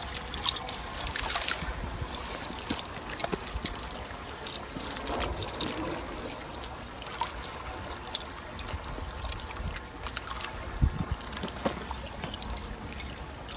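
Wet gillnet paying out through a hand as it is towed out across the water: water dripping and trickling off the mesh, with many scattered light clicks and rustles.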